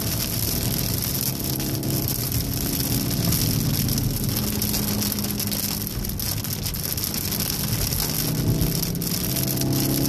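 Inside a 2014 VW Golf VII R driving fast on a soaked track: a steady hiss of rain and tyre spray, over a faint note from its 2.0-litre turbocharged four-cylinder engine. The engine note starts to rise near the end as the car picks up speed again.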